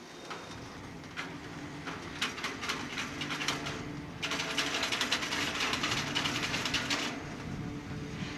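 Double-stack intermodal freight cars rolling past, wheels clicking and rattling over the rails in quick runs over a steady low rumble. The clicking grows dense and loudest from about four seconds in, then thins out about seven seconds in.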